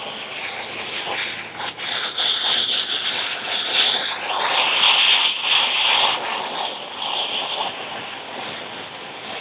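Hand-held propane torch burning, its flame hissing steadily as it scorches the carved wood; louder around the middle, easing off near the end.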